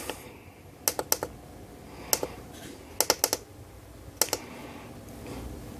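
Sharp clicks in small quick groups from controls being worked on electronic test gear while setting a new test current: about three just before a second in, one near two seconds, four around three seconds and two after four seconds.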